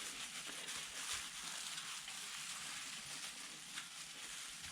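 Faint, steady soft hiss of a wet cloth rubbing across sooty fireplace-insert glass.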